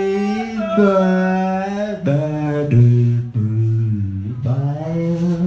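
A man's voice singing long held notes into a microphone. The pitch drops lower about two seconds in and climbs back up near the end.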